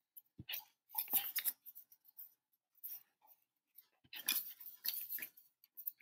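Handling sounds of a balsa wood rocket fin and small items on a wooden tabletop: a light knock, then brief scrapes and rustles in two bursts, near the start and about four seconds in.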